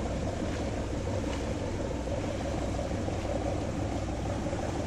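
Motorboat engine running steadily at slow speed, a low hum with an even hiss over it.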